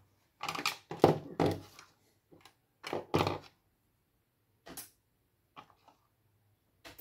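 Computer cables being handled and connectors plugged into a desktop motherboard's rear ports and its power supply: two clusters of knocks and scrapes in the first half, then three single sharp clicks about a second apart.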